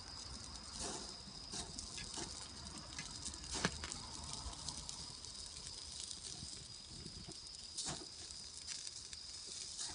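Wood campfire crackling with scattered pops and snaps, the sharpest a little over three seconds in and another near eight seconds. Under it runs a steady high-pitched trill of insects.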